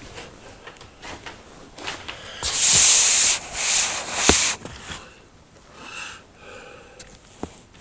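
Rubbing, scraping noise in three loud bursts about two and a half to four and a half seconds in.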